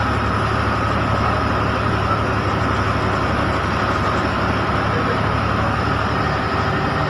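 Steady engine drone and road noise heard from inside a bus moving along a rain-soaked road, with an even hiss of tyres on the wet surface.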